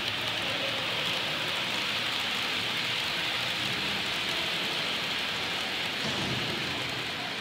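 Model train running along the layout track: a steady hiss and whir from the locomotive's motor and the wheels of its coaches.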